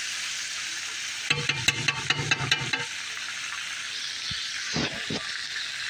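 Catfish frying in a shallow pan of oil, a steady sizzle. About a second in, a quick run of ringing clinks lasts about a second and a half.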